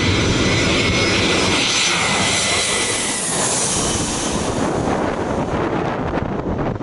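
Airbus A320-200 airliner's jet engines as it passes low overhead on final approach to land. The sound is loudest and sharpest as the plane goes directly overhead about three and a half seconds in, then recedes.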